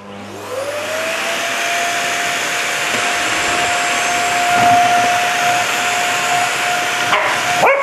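Vacuum cleaner switched on, its motor whine rising in pitch over about the first second as it spins up, then running steadily.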